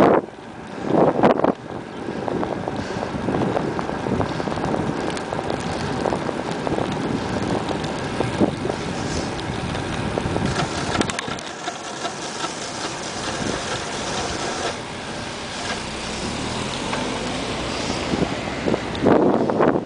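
Wind rushing over the microphone of a camera on a moving bicycle, a steady noise with louder buffeting gusts about a second in and again near the end.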